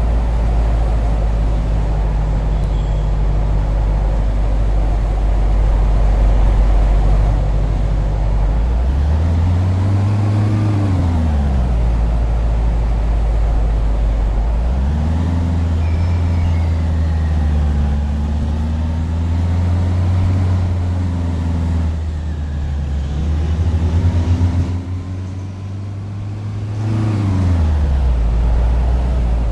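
Tram riding along, its electric traction motors whining in a tone that rises and falls as it speeds up and slows down, over a steady low rumble.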